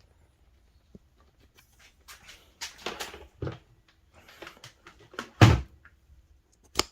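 Handling knocks and scraping as a small wet/dry shop vacuum is worked onto its wall-mount bracket, with one heavy thud about five and a half seconds in and a sharp click near the end.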